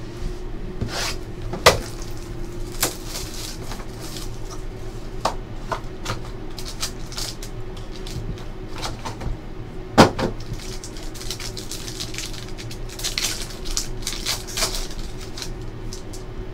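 Hands handling a trading-card hobby box and its packaging: cardboard lid and box parts tapped and knocked on the table, a sharp knock about two seconds in and a louder one about ten seconds in, then crackly rustling of the foil pack and cards near the end. A steady low hum sits underneath.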